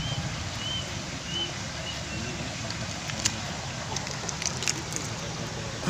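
Steady outdoor background rumble, with three short chirps in the first second and a half and a handful of sharp clicks about three to five seconds in.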